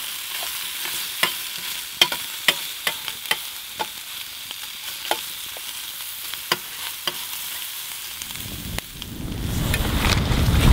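Food sizzling and frying in an uncoated stainless steel skillet, a steady hiss with many sharp pops. A low rumble rises near the end.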